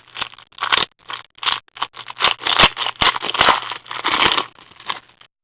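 A trading card pack and its cards being handled close to the microphone: a quick, irregular run of crinkling and scraping with a few sharp clicks, stopping abruptly just before the end.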